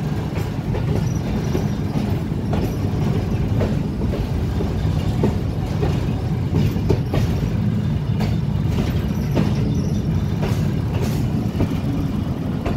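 Fareed Express passenger train running slowly, heard from on board: a steady low rumble with irregular clacks of the wheels over the rail joints.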